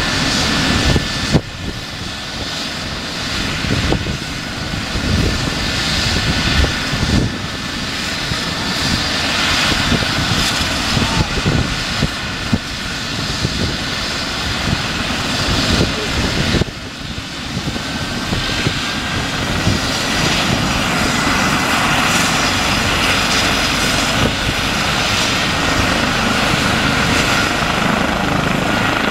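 Eurocopter EC 135 P2 rescue helicopter running on the ground before lift-off: the whine of its twin turboshaft engines over the beat of the turning main rotor. The sound grows louder and steadier about two-thirds of the way in.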